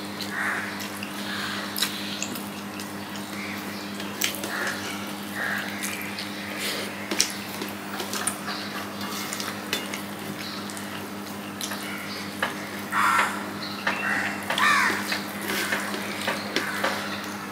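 Eating sounds: fingers mixing rice and fish curry on a steel plate, with short clicks and scrapes of fingertips against the metal and soft wet chewing and mouth sounds. A steady low hum runs underneath.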